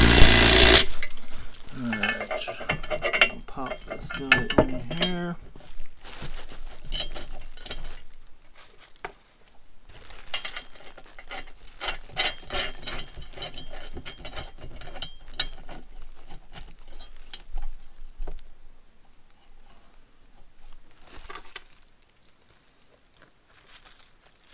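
A cordless drill-driver running a socket onto a bolt in a steel tire-carrier bracket, loudest in the first second, then spinning in short bursts for a few seconds. After that, metal brackets and bolts clink and knock as parts are fitted by hand, ending in near quiet.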